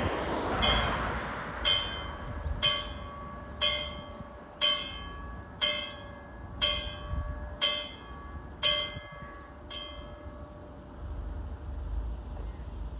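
Level crossing warning bell striking about once a second, around ten strokes that ring on briefly, then stopping about ten seconds in; it warns that a light-rail train is approaching. A rushing noise fades in the first second, and a low rumble rises near the end.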